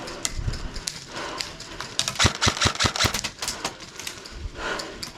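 Airsoft guns firing: scattered sharp snapping shots, with a rapid run of about eight a second for roughly a second, starting about two seconds in.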